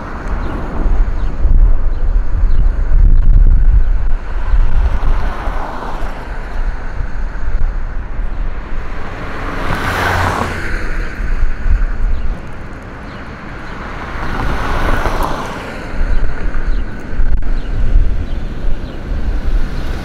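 Street traffic heard from a moving vehicle: a steady low rumble of road noise with wind buffeting the microphone, and other vehicles swelling past, once about halfway through and again a few seconds later.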